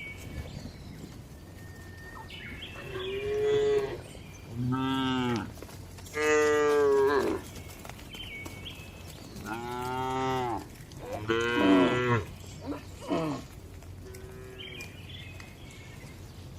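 Cattle mooing in a barn: a run of about five long, drawn-out moos, then a few short ones near the end, over a steady low background hum.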